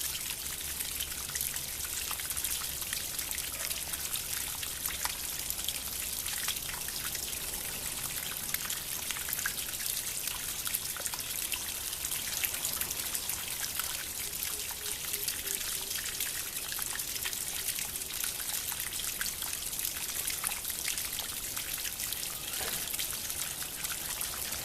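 Water fountain trickling and splashing steadily, with many small droplet ticks over a continuous hiss of running water.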